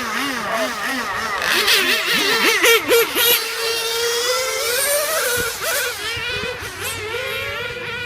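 Several nitro RC car engines, small two-stroke glow-fuel engines, buzzing and revving up and down at once as the cars race around the track.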